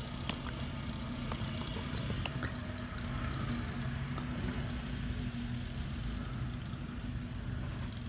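Engine of a pickup truck fitted with a snowplow blade, running steadily as a low hum while it plows snow.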